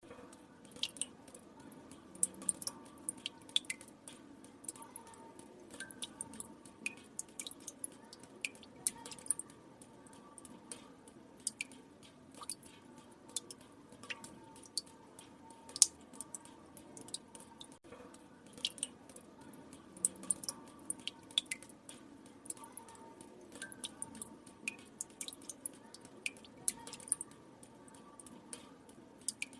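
Water drops dripping into water: a steady, irregular patter of sharp plinks, several a second, some much louder than the rest.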